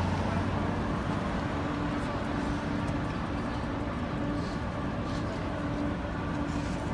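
Steady city street noise of vehicles running, with a faint low hum that comes and goes.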